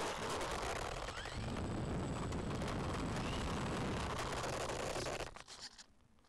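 Rough, rumbling noise from an RC plane moving along rough tarmac, picked up by its onboard camera microphone. It cuts off abruptly about five seconds in as the plane comes to rest.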